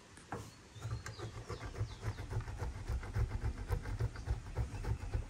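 Cured cheese grated on a metal box grater standing on a wooden cutting board: rapid, rhythmic scraping strokes, each with a low knock of the grater on the board, starting about a second in.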